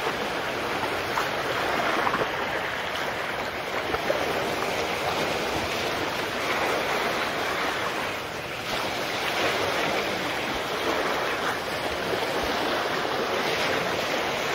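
Small sea waves washing and breaking against the edge of a concrete slipway: a steady wash of surf.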